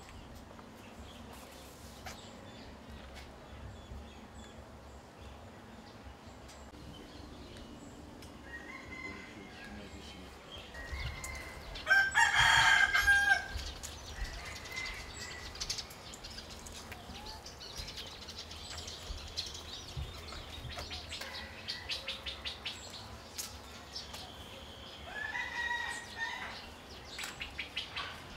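Roosters crowing: one loud crow lasting over a second about twelve seconds in, with fainter crows a few seconds before it and again near the end.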